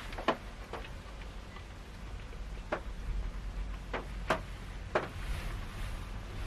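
Rain falling on a car's roof, heard from inside the cabin: scattered, irregular drops tapping sharply, about half a dozen loud ones, over a steady low rumble.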